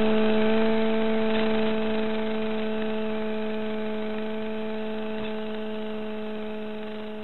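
Small electric RC airplane's motor and propeller running steadily in a climb, a constant-pitch hum with a few clear overtones that slowly gets quieter.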